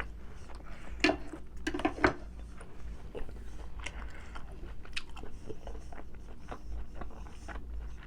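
Close-up chewing of rib eye steak: many small wet mouth clicks and smacks, with two louder bursts about one and two seconds in.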